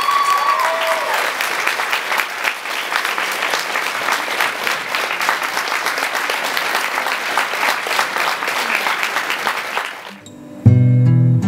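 Audience applauding steadily for about ten seconds. It then drops away and an acoustic guitar instrumental starts near the end.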